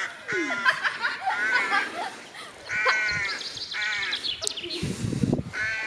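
Birds giving a series of short, harsh cawing calls, with a quick run of high chirps about four seconds in. A low rumble of wind on the microphone comes near the end.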